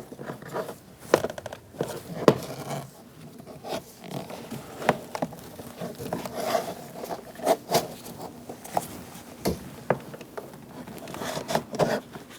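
Plastic trim tool prying and scraping around the edge of a Honda CR-V interior door panel, with irregular sharp clicks and knocks about every second as the plastic retaining pins release.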